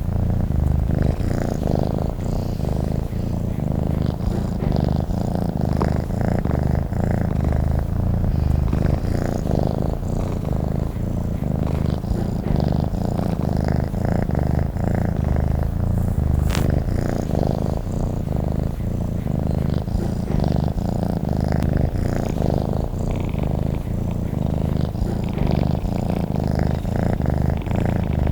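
Domestic cat purring steadily and close up: an unbroken low, rapid rumble.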